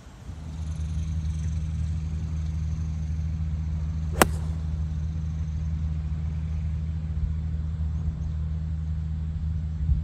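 A golf iron strikes the ball once, a sharp crisp click about four seconds in, over a steady low engine hum.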